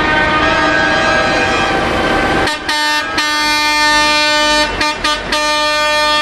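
Several vehicle horns honking together. From about two and a half seconds in, one loud air horn takes over in long blasts broken by a few short gaps.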